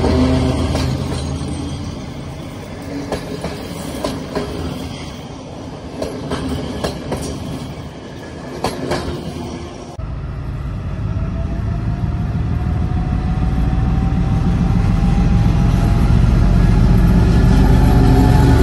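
Passenger coaches rolling past, their wheels clacking over rail joints. About ten seconds in, a MÁV M62 diesel locomotive's two-stroke V12 engine rumbles close by as it pulls a train past, growing steadily louder with a faint rising whine.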